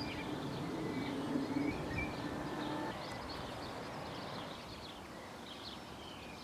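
Small birds chirping, with a faint steady hum for the first three seconds that then stops.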